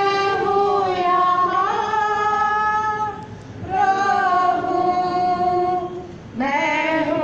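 Women singing a slow hymn without accompaniment. The notes are long and held, in phrases with short pauses for breath about three and a half seconds and six seconds in.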